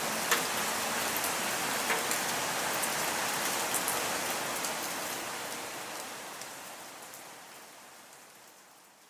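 Hurricane rain falling steadily, with scattered individual drops ticking on a surface. The sound fades out gradually over the last few seconds.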